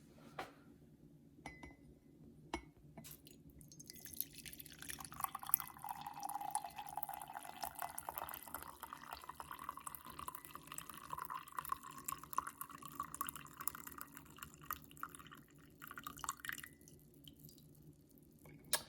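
Brewed Thai coffee poured from a French press into a glass: a steady trickling stream lasting about thirteen seconds, its pitch rising a little as the glass fills. A few light clicks come just before the pour.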